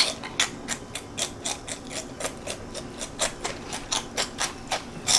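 Crunchy pork rinds being chewed close to the microphone: a steady run of crisp crunches, about four a second.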